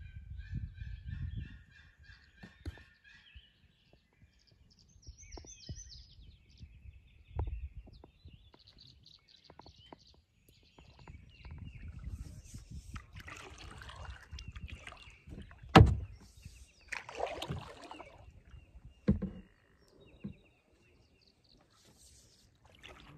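Birds singing with chirps and trills, over scattered knocks and a stretch of rustling or splashing noise; one sharp knock in the middle stands out loudest.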